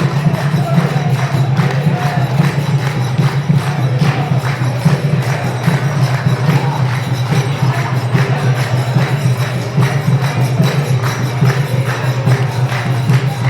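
Devotional music with a fast, steady jingling percussion beat over a constant low hum.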